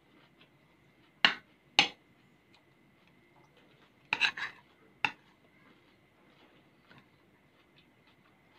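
Metal spoon clinking and scraping against a ceramic plate while scooping food. There are two sharp clinks about a second in, a quick cluster around four seconds, and one more a second later.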